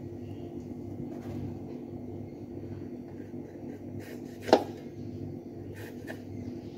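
A green vegetable is being peeled against the curved blade of a bonti, with light scraping and small ticks and one sharp click about four and a half seconds in, over a steady low hum.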